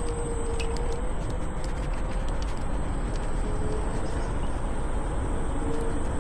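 Electric scooter riding noise: a steady rush of wind and tyre rumble on the path, with a thin high steady whine and a lower hum that drifts slightly in pitch, and a few small clicks from bumps.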